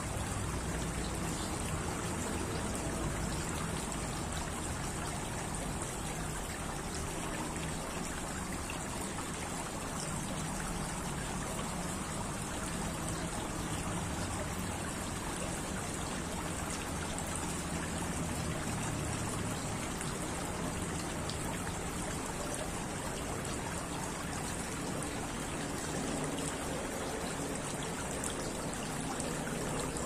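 Tiered stone garden fountain, water trickling steadily down its stacked bowls.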